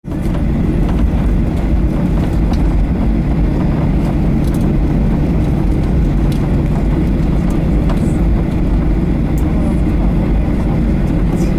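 Cabin noise inside a Boeing 737-800 taxiing: a steady low rumble from its CFM56 jet engines and the roll along the taxiway, with a few faint clicks.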